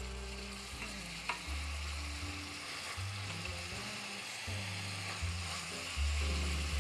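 Minced onion sizzling as it sautés in vegetable oil in a stainless steel pot, stirred with a spoon. There is a single light click a little over a second in.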